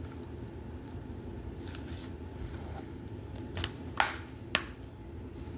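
Hands handling a plastic Blu-ray case and its paper insert: faint taps and rustles, then two sharp clicks about four seconds in, half a second apart, over a low room hum.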